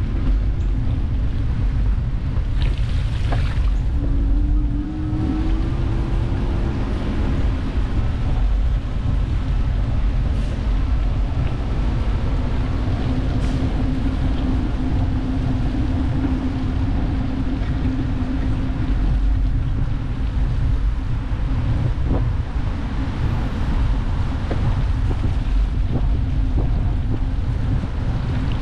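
Wind buffeting the microphone of an action camera on a moving bicycle, a loud, steady low rumble with tyre noise from the path under it. A faint steady hum comes and goes within the rumble.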